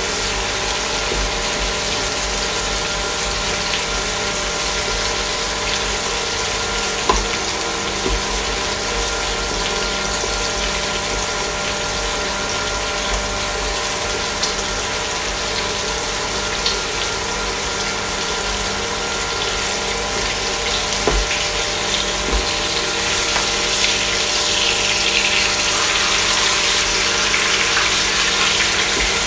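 Salmon steak and green beans sizzling in oil in a frying pan, over the steady hum of an induction cooktop, with a few light spatula taps. The sizzle grows louder and brighter near the end.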